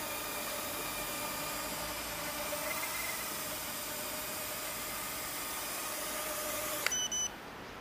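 Faint whine of a micro quadcopter's four HGLRC Flame 1104 7500KV brushless motors and Gemfan 2035 propellers in flight, under a steady hiss; the pitch wavers a little a few seconds in. Near the end the hiss cuts off abruptly with a few short clicks.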